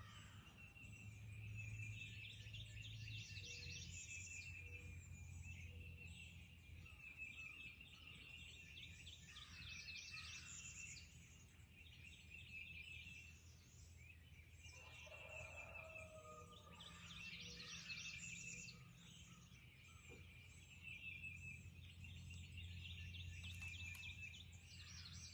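Faint dawn chorus of several songbirds: a rapid trill repeated every second or two over many overlapping high chirps, with a low steady hum underneath.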